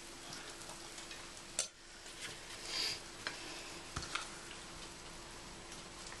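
Light kitchen handling noises: a few short clicks and taps, a brief scrape and one soft knock, over a steady background hiss with a faint hum.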